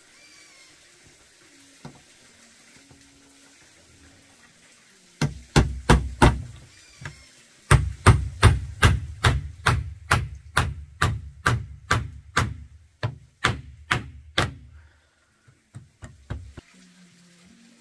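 Hammer driving nails into wood: a quick group of four blows, a short pause, then a steady run of about twenty blows at roughly three a second, ending with a few lighter taps.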